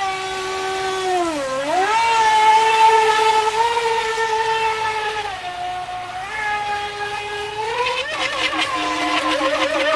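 Feilun FT011 RC speedboat's brushless motor whining at speed. The pitch dips and climbs back about a second and a half in, drops a step a little past halfway, and rises again with a warble near the end as the throttle changes.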